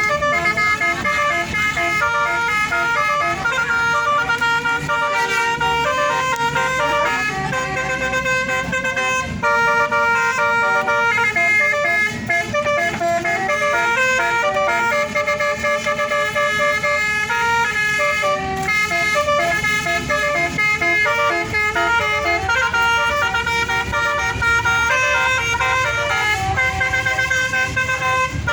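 Bus 'telolet' horn, a bank of electrically switched air horns, playing a tune in quick steps of pitch without a break, over a low rumble underneath.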